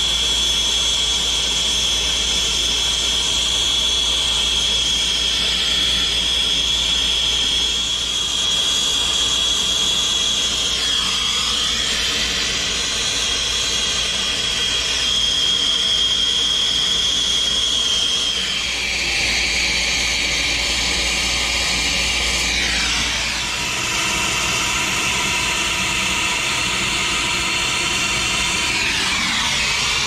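Acetylene brazing torch burning with a steady rushing flame, heating copper refrigerant pipe joints for brazing. A high whistle runs through the flame noise and drops to a lower pitch about two-thirds of the way through.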